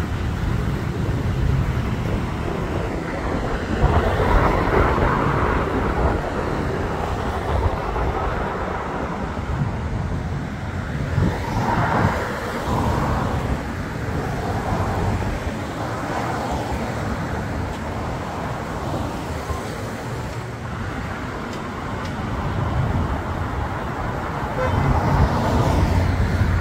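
Street traffic: a steady rumble of passing cars' engines and tyres that swells several times as vehicles go by.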